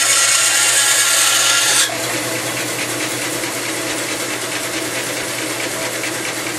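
Bandsaw blade cutting through a small log, a loud steady hiss that ends abruptly about two seconds in as the cut breaks through; the saw then runs on freely with a steady motor hum.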